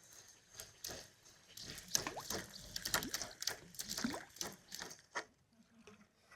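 Fishing reel being wound in: a quiet run of rapid mechanical clicks and ticks that starts about half a second in and stops a little after five seconds.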